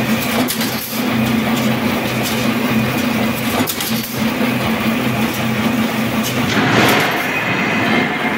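Wire straightening and cutting machine running, its motor and drive giving a steady hum under a rattling mechanical noise as wire is drawn off the coil into it. The noise swells briefly about seven seconds in.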